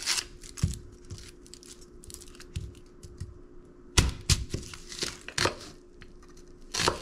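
Kitchen knife cutting the ends off a yellow onion on a plastic cutting mat and the onion's dry papery skin being peeled away: scattered knife knocks on the board among light crackling of the skin, with the sharpest knock about four seconds in.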